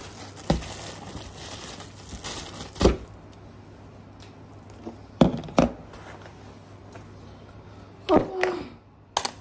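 Thin plastic takeaway bags rustling and crinkling as they are handled and set down on a wooden desk, with several knocks of the food containers landing on the tabletop. Near the end comes a brief falling squeak, then one more knock.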